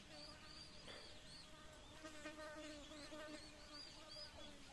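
Faint buzzing of a flying insect, wavering in pitch and strongest in the middle, with faint short high chirps repeating in the background.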